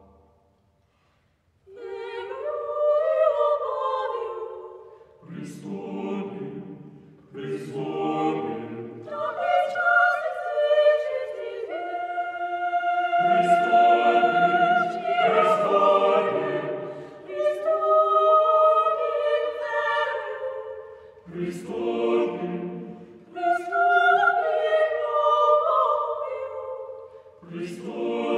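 Mixed chamber choir singing unaccompanied Church Slavonic sacred music in sustained chords, in phrases with short breaks between them. The choir comes in after about a second and a half of silence at the start.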